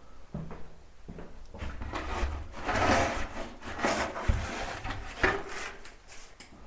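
Scraping and knocking from hand demolition work, with two sharper knocks a little after four and five seconds in.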